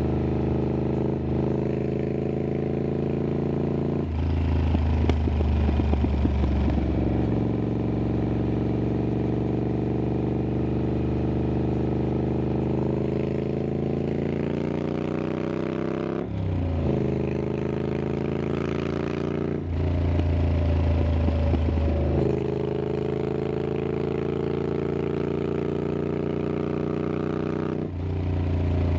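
Triumph Scrambler 900's parallel-twin engine running through an aftermarket exhaust while riding, its pitch rising and falling with the throttle. It gets louder about four seconds in, and the pitch drops sharply several times, around the middle and near the end, as gears change.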